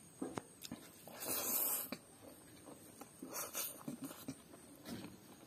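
Close-up eating sounds: a man chewing a mouthful of rice and pork curry eaten by hand, with short wet lip smacks and clicks, and one longer noisy sound lasting about half a second just after a second in.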